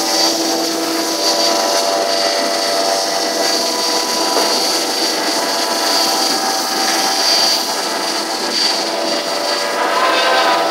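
Woodworking CNC router running steadily, a constant high whine over a mechanical hum.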